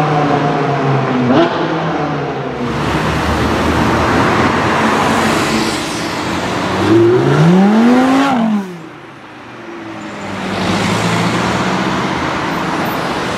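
Supercar engines on a city street: a Ferrari 458's V8 pulling away, then a Lamborghini Gallardo's V10. About seven seconds in, one engine revs up sharply in pitch and falls away again. The sound breaks off abruptly, and an engine is heard again accelerating near the end.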